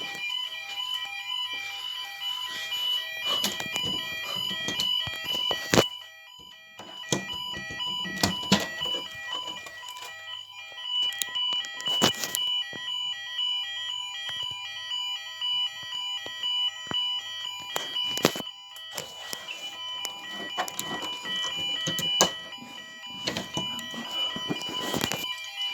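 Electronic fire alarm sounders going off during an alarm test, several high tones pulsing on and off rapidly. A sharp click comes about every six seconds.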